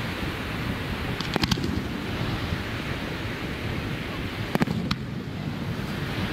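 Distant aerial firework shells bursting: a quick cluster of sharp cracks a little over a second in, then two more bangs about four and a half and five seconds in. Underneath is a steady rumble of wind on the microphone and surf.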